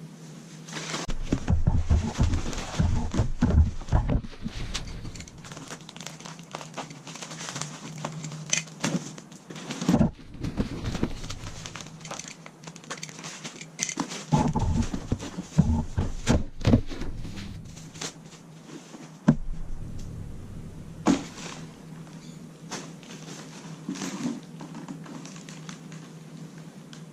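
Packing material crinkling and rustling as parts are unwrapped and handled, with scattered clicks and a few dull thunks as pieces are set down.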